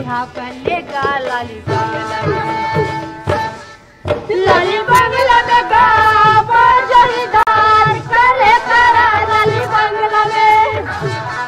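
Chhattisgarhi folk song: an instrumental melody over a drum beat, then, after a brief dip about four seconds in, a loud sung line carried over the music.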